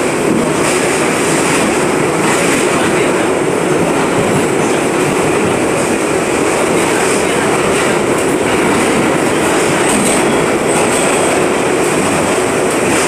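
R62A subway car running at speed through a tunnel, heard from inside the car: a loud, steady rumble of steel wheels on rail, with scattered clicks as the wheels cross rail joints.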